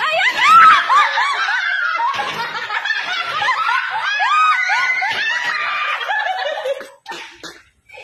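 Rapid, high-pitched laughter: a quick run of short squealing peals that stops shortly before the end.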